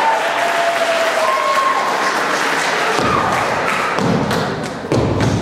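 A step team stepping on a wooden stage: heavy stomps and sharp hand claps and slaps begin about halfway through. Before that come drawn-out shouts and cheering from the crowd.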